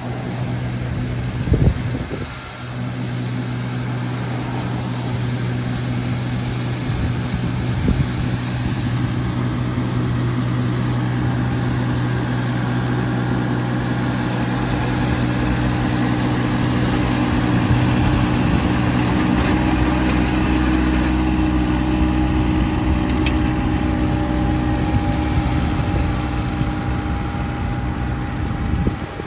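John Deere garden tractor's engine running steadily while it drives a front-mounted rotary broom sweeping dead thatch out of a lawn. About two-thirds of the way through the note changes and deepens as the tractor comes closer.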